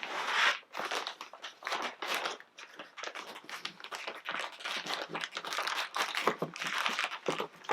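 Packaging crinkling and rustling in a run of short, irregular bursts as a parcel is handled and opened by hand.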